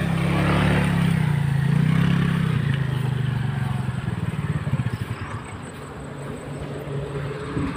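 Small motor scooter engine running at low speed over a rough grass track, its pitch wavering up and down, then falling to a quieter idle about five seconds in.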